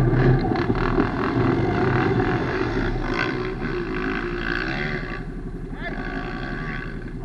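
ATV engine running, the throttle swelling and easing, loudest in the first second and gradually settling lower.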